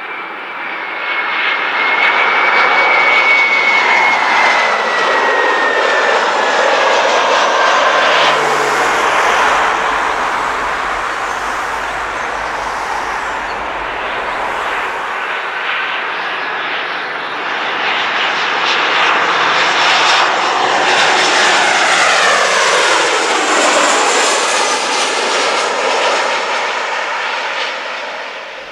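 Two twin-jet airliners, an Airbus A320 and then a Boeing 737, passing low overhead on final approach. Each is a loud jet rush that swells and fades: the first has a whine that falls in pitch as it goes over, and the second, about twenty seconds in, sweeps through a whooshing change of tone at its loudest.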